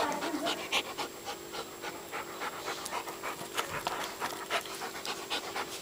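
Alaskan malamute puppy chewing a raw meaty bone, with irregular crunches and cracks as its teeth work the bone, and panting between bites.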